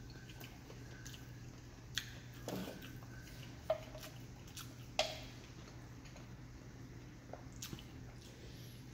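A metal soda can being handled, giving a few sharp clicks and taps, the loudest about five seconds in with a short ring, amid faint eating sounds and a low steady hum.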